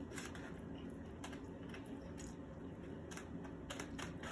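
Faint, scattered clicks and soft mouth and handling noises from close-up eating, over a low steady hum.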